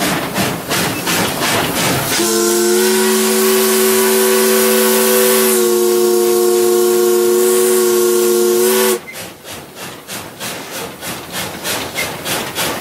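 Steam locomotive's chime whistle blown from the cab: one long chord of several tones, held for about seven seconds before it cuts off. Before and after it comes the rhythmic beating of the running locomotive.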